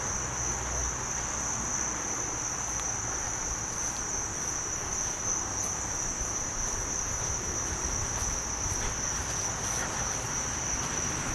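Steady high-pitched insect chorus, an unbroken trilling that holds one pitch throughout.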